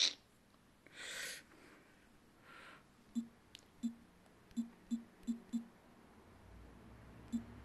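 A sharp click right at the start, two soft whooshes, then a run of light taps, about six in two and a half seconds and one more near the end: fingers tapping and handling the phone that is recording.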